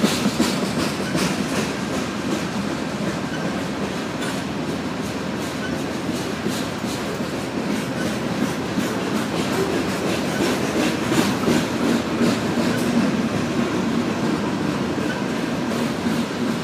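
Covered hopper cars of a loaded BNSF grain train rolling past: a steady rumble of steel wheels on rail, with rhythmic clicking as the wheels cross rail joints, thicker in the first half.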